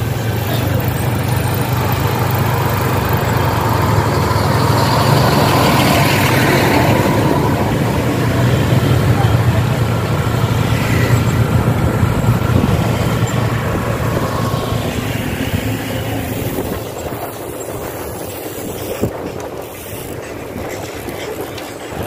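Motor vehicle engine droning steadily under road and wind noise, with louder swells in the middle as traffic goes by. The drone and the overall level ease off after about 16 seconds.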